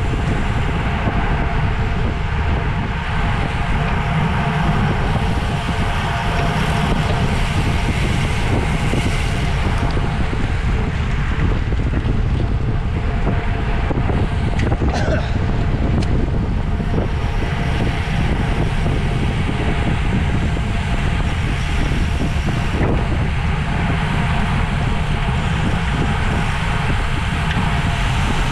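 Wind buffeting a microphone carried at racing speed in a bicycle criterium: a steady rush with a rumbling low end.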